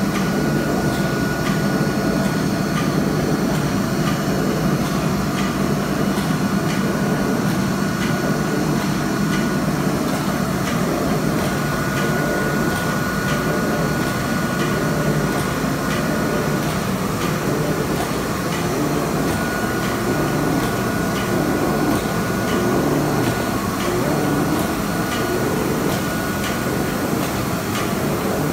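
Folder-gluer line with a tape applicator running steadily at about 56 m/min, corrugated board blanks feeding through on belts: an even mechanical rumble and rattle with faint regular ticking. A thin high whine runs over it and drops out twice, around ten seconds in and again near eighteen seconds.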